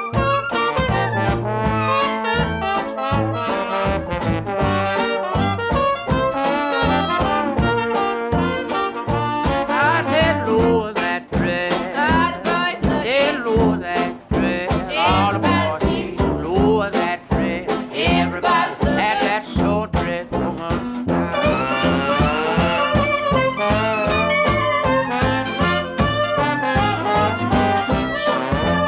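Upbeat swing-style jazz with brass (trumpet and trombone) over a steady beat.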